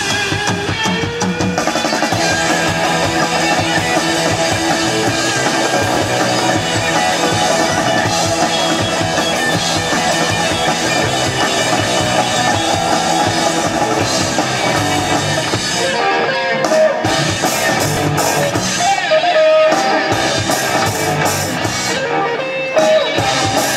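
Rock band playing live: electric guitar lead over drum kit and bass, with no singing. About two-thirds of the way in, the band switches to stop-start hits with sustained guitar notes between them.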